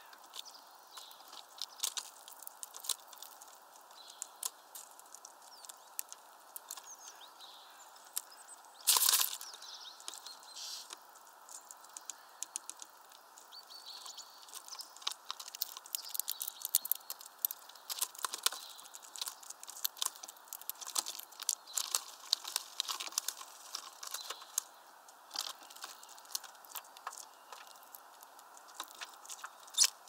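Blue tits and great tits pecking and scrabbling at a plastic feeder tub: a stream of irregular sharp taps and clicks, busier in the second half. A short, loud rustle of wings about nine seconds in.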